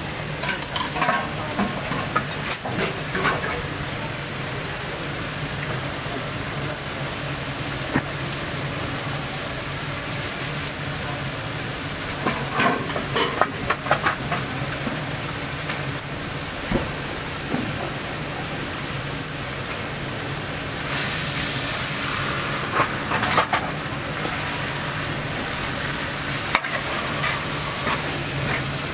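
Food frying and sizzling on a hot cooking surface at a shawarma stall, a steady hiss over a low hum, with bursts of utensil clatter three times.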